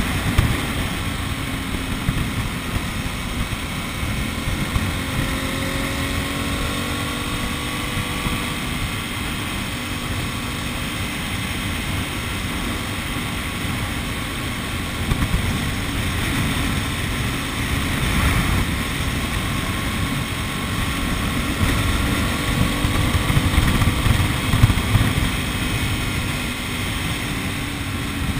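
Car driving along a highway: a steady rumble of engine and road noise, with a few faint tones that slowly shift in pitch.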